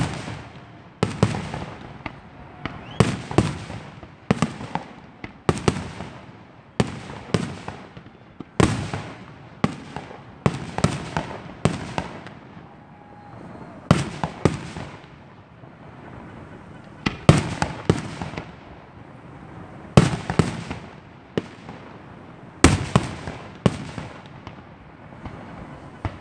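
Aerial fireworks shells bursting in an irregular series of sharp bangs, often two or three in quick succession, each trailing off in an echo. There is a brief lull a little past the middle.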